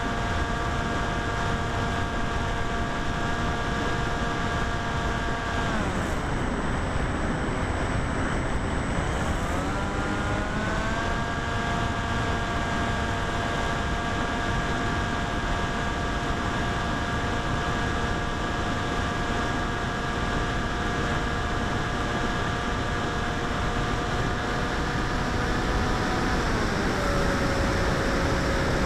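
Electric motor and propeller of a foam flying wing, heard from its onboard camera: a steady whine over wind rush. The whine sinks as the throttle is cut about six seconds in, climbs back to full pitch around ten seconds, and drops again near the end.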